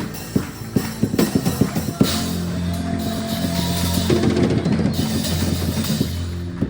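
Drum kit played with a band's music: a quick run of drum strokes for about two seconds, then a held final chord with cymbals ringing over it.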